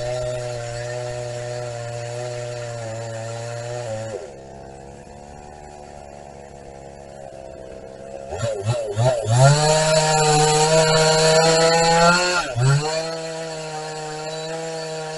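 Vintage Husqvarna two-stroke chainsaw running: it holds a steady speed, drops to idle about four seconds in, is blipped several times near eight seconds, then goes to full throttle cutting into a trunk for about three seconds before easing back and running on at a lower speed.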